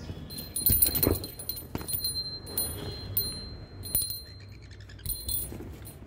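A small metal bell jingling and ringing over and over, as on a pet bird's toy being shaken, with rattling clicks and a few louder knocks and rustles about a second in.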